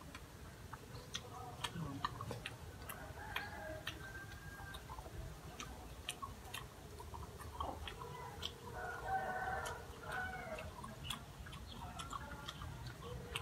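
Domestic chickens faintly in the background: clucking and a rooster crowing, the clearest calls about three to four and nine to ten seconds in, over scattered small clicks.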